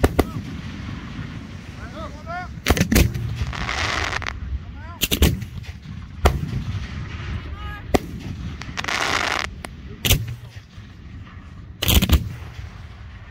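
Aerial firework shells bursting in a string of sharp booms, one every one to two seconds, with stretches of crackling about a second long after some of the bursts.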